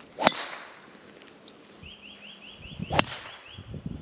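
Two sharp cracks about two and a half seconds apart, golf clubs striking balls on full shots. A quick run of faint high chirps sounds between them.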